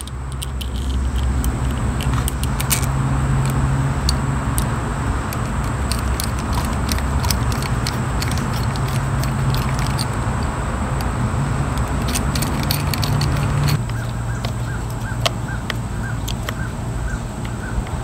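A steady low machine hum in the background, with many light clicks and taps of a screwdriver and small metal parts as a string trimmer's carburetor is put back together.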